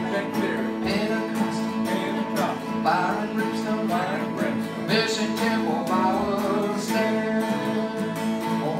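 An electric hollow-body guitar and an acoustic guitar strumming chords together in a driving country beat.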